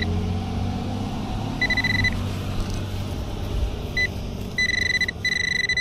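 Handheld metal-detecting pinpointer beeping at one steady high pitch: short separate beeps that grow longer and run into an almost continuous tone near the end as it homes in on a buried coin.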